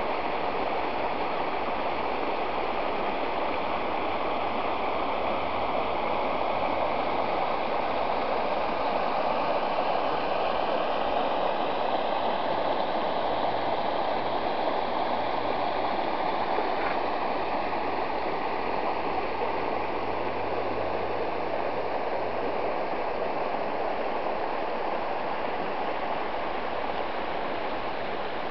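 The Solinka, a shallow mountain river flowing over a stony bed, with a steady rushing of water.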